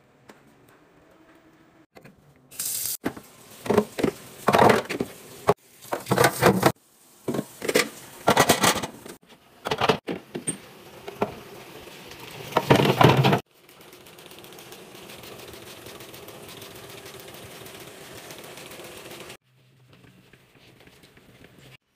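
Rapid clicking, clattering and knocking of items being handled and set down during a fridge restock, in short bursts with abrupt cuts between them. Then a steady hiss for about six seconds that cuts off suddenly.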